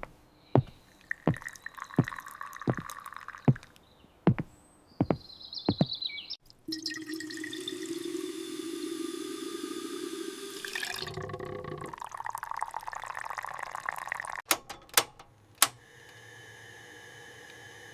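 Tea-making sounds: a string of light clinks and taps, then water pouring for several seconds, then a few more sharp clinks.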